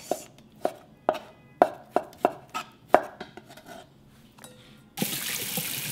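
Kitchen knife slicing soaked shiitake mushrooms on a wooden cutting board: about eight sharp knife strikes against the board in the first three seconds. About five seconds in, a steady hissing noise takes over.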